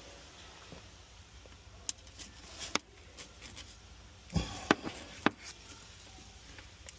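A few sharp clicks and taps from handling a flexible magnet pickup tool used to fish broken spark plug pieces out of the cylinder, with a soft knock about four and a half seconds in.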